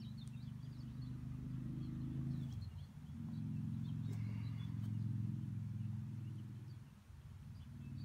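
A low, steady motor hum that dips briefly about three seconds in and again near seven seconds, with faint bird chirps above it.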